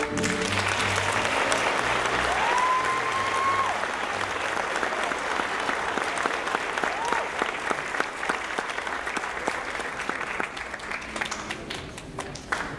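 Theatre audience applauding as the music ends, a dense patter of many hands clapping that slowly thins out. A long high cheer rings out from the crowd a couple of seconds in, and a shorter one later.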